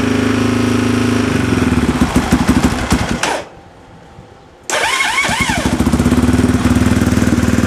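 Yamaha Raptor 660 ATV's single-cylinder engine running, turning uneven about a second and a half in and cutting out about three seconds in. After a gap of about a second and a half it is running again at once, with a few short squeals just after it returns, then runs steadily.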